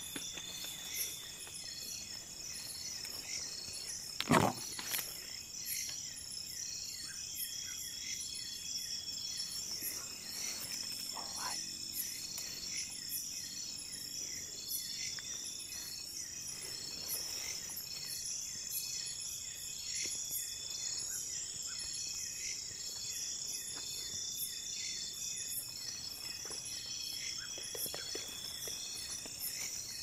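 Night chorus of crickets and other insects in tropical forest: a steady high buzz with several pulsing trills layered over it. A single sharp knock sounds about four seconds in.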